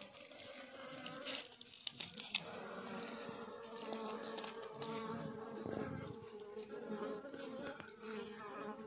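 Flies buzzing steadily, with a few sharp clicks about two seconds in.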